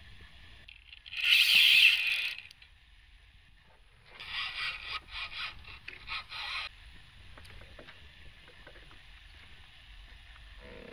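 A brief loud rushing splash about a second in, then a couple of seconds of rapid clicking and scraping, as a small yellow perch hooked on a tiny crankbait is played at the side of a canoe.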